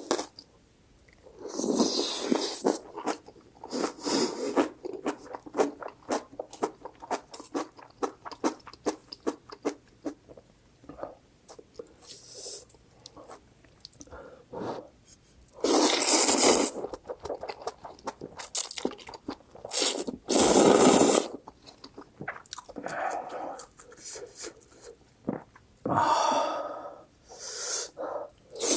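Close-miked eating of spicy instant ramen and kimchi: constant small chewing and crunching clicks, broken by several loud noisy slurps of about a second each, near 2, 4, 16, 20 and 26 seconds in.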